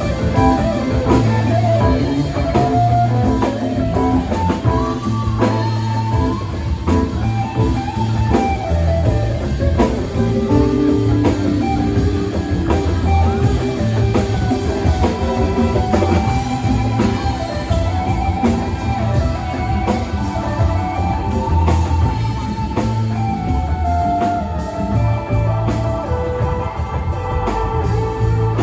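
Live rock band playing an instrumental passage: guitar lines over bass and drum kit.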